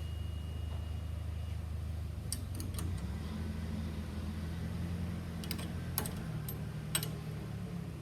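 Steady low mechanical hum, with a few light metallic clicks as the installation tool's nuts and parts are handled and removed; the hum's pitch shifts slightly about three seconds in.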